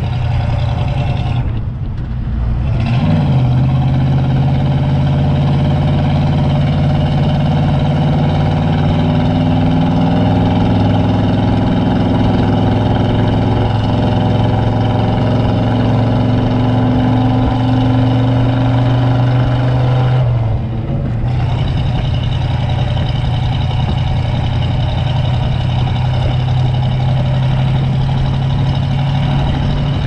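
Pickup truck engine running as it tows a loaded trailer down the road, with steady tyre and road noise. The engine note shifts about three seconds in, and the sound dips briefly about twenty seconds in.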